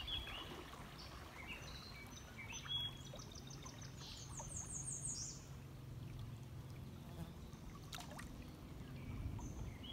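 Faint, steady flow of river water around a floating inner tube, with a songbird singing short runs of quick high notes about three to five seconds in.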